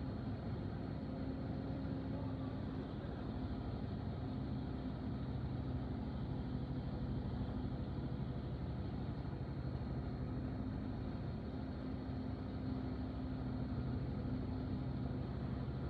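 Machine engine running steadily at an even speed, a low hum with its pitch holding level.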